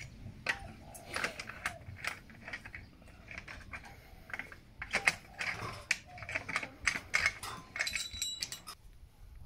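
Loose metal clamps, wedges and rods clinking and knocking as they are pried off the metal frame of a sand-casting mould. It is an irregular run of sharp clicks and clanks, a few of them ringing briefly.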